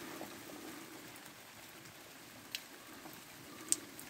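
Light rain falling: a faint, steady patter with two sharper drop ticks, one about two and a half seconds in and one near the end.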